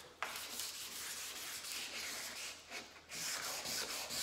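Wet-sanding a plastic headlight lens by hand with 400-grit sandpaper: quick back-and-forth scraping strokes that start a moment in, pause briefly about three seconds in, then pick up again. The grit is cutting away the yellowed, oxidized surface of the lens.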